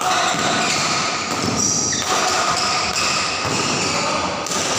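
Badminton doubles rally: shuttlecock hits and shoes squeaking on the court, over a steady hubbub from spectators in the hall.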